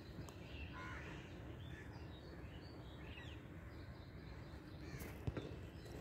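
Faint outdoor bird calls, a few short chirps and one harsher call just under a second in, over a low steady rumbling background. A single sharp click comes a little after five seconds.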